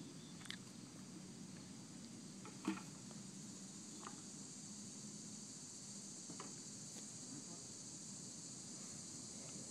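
Steady high insect chirring in the background, with a few faint knocks and one sharper knock near the 3-second mark.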